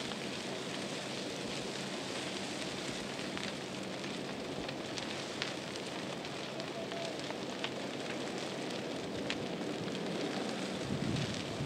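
Trees and brush burning in a wildfire: a steady rushing hiss of flames with scattered sharp crackles and pops.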